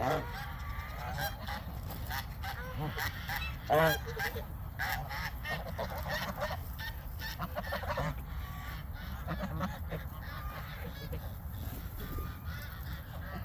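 A flock of geese honking repeatedly, many short calls overlapping, the loudest about four seconds in.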